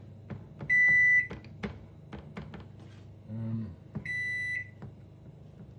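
Daewoo microwave's control panel beeping on its own: two steady half-second beeps about three seconds apart, with faint clicks between them. It is a fault in which the microwave beeps by itself and ignores its touch buttons, which the owner puts down to an electrical connection or touch-button fault.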